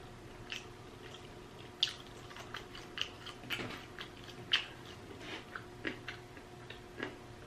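A person chewing food close to the microphone with wet mouth smacks and clicks, irregular, about a dozen in a few seconds.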